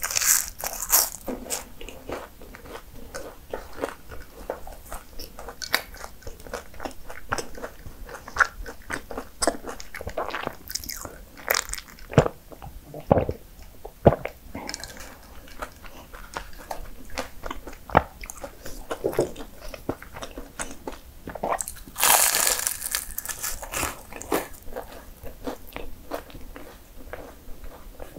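Crisp crunching bites and chewing of flaky mini puff pastries, a scatter of sharp crackles throughout. A longer, denser burst of crunching about 22 seconds in is the loudest.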